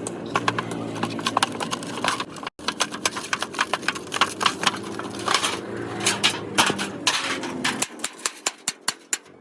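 Irregular quick clicks and taps, as of hand work on an object, over a low steady hum; the sound cuts off abruptly twice.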